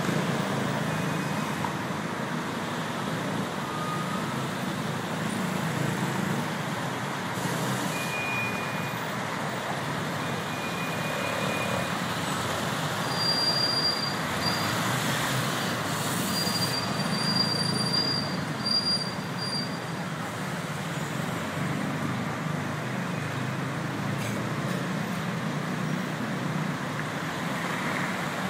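Dense rush-hour road traffic: a steady wash of engines and tyre noise. In the middle come a few short high-pitched brake squeals and brief hisses.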